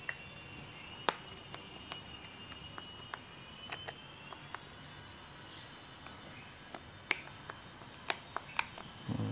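A handful of sharp, irregular plastic clicks and knocks from a new Royce reciprocating saw being handled as its blade is fitted into the clamp.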